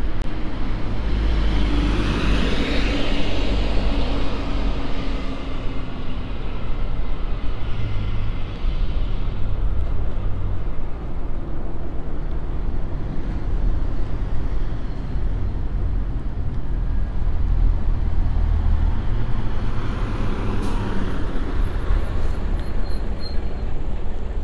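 Steady low rumble of riding outdoors, with a motor vehicle passing close by about two seconds in, its engine tone falling as it goes, and another vehicle passing less loudly near the end.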